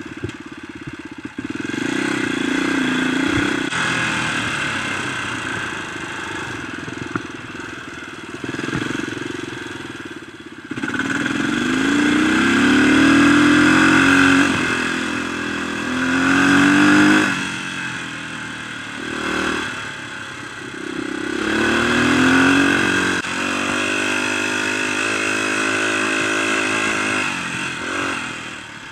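Dirt bike engine running while being ridden, its pitch rising in several sweeps as the rider accelerates through the gears and falling back between them.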